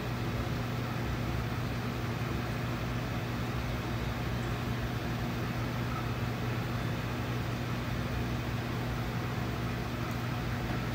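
Room air conditioner running: a steady whoosh of air with a low electrical hum under it.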